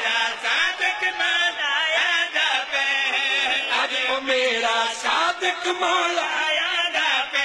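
Men's voices chanting a devotional qasida refrain in Punjabi, several singers sounding together into a microphone.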